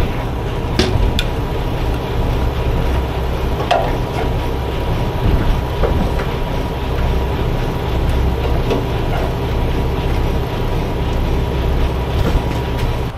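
A semi truck's diesel engine runs with a steady low rumble, with a few short clicks and knocks over it.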